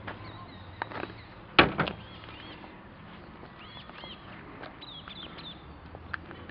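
Small birds chirping over a low steady hum, with a few sharp knocks, the loudest about a second and a half in.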